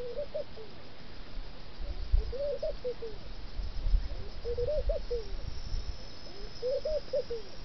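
Laughing dove cooing: a soft phrase of several notes that climb and then fall, repeated about every two seconds, four times. Low thumps come about two and four seconds in.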